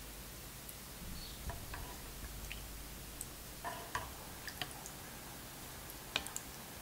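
Light, scattered clicks and taps of a spoon against a ceramic pot and bowl as soup is spooned out, the sharpest click about six seconds in.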